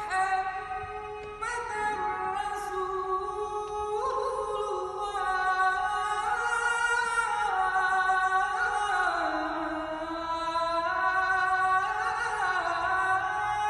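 A single high voice singing unaccompanied, holding long notes and sliding slowly from pitch to pitch.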